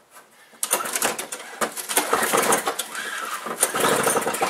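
Two-stroke single-stage snowblower engine being cranked in the cold, turning over with a dense, irregular clatter for about four seconds but not catching. The owner suspects a blocked carburetor or the cold.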